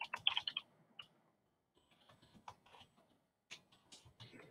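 Faint computer keyboard keystrokes as a name is typed: a quick run of key clicks at first, then scattered taps with short pauses.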